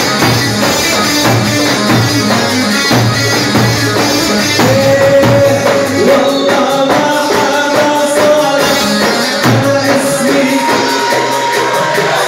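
Loud live band music at a party, with a steady percussion beat. A melody line holds long sustained notes through the middle and latter part.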